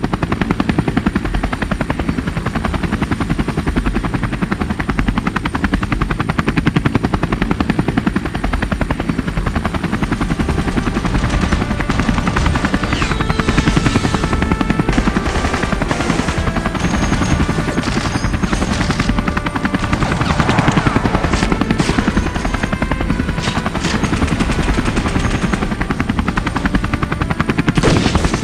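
Helicopter rotor chopping steadily, joined from about twelve seconds in by repeated bursts of gunfire.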